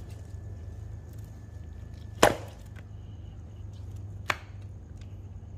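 Two sharp knocks, the first much louder, about two seconds apart, over a low steady hum.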